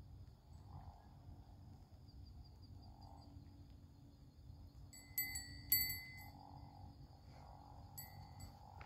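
A fishing-rod bite bell at the rod tip rings sharply twice, about five seconds in, then more weakly once near the end: something is tugging at the line.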